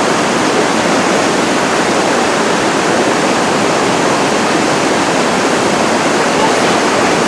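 Rainbow Falls, a large waterfall, pouring with a loud, steady rush of falling water.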